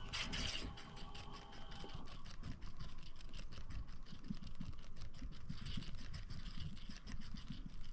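Spinning reel being cranked to wind a lure in: a rapid, steady mechanical ticking from the reel's gears.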